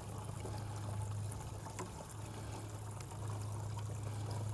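Backpack pump sprayer spraying tinted concrete sealer onto a driveway: a steady hiss and patter of liquid mist on the concrete, over a steady low hum.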